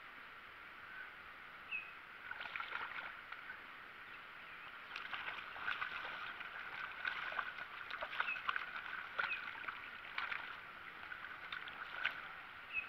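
A hooked catfish being fought and reeled in to the side of a small boat: irregular crackling splashes at the water's surface mixed with the fishing reel being cranked, starting about two seconds in and going on in uneven spurts.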